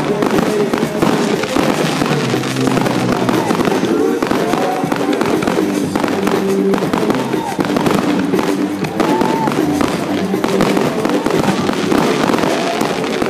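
Fireworks display: shells bursting and crackling in a dense, unbroken run of pops and bangs.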